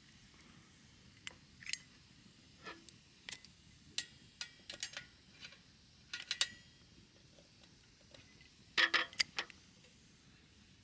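Small hard objects clicking and clinking as they are handled, in scattered single taps with a quick cluster of louder clinks about nine seconds in.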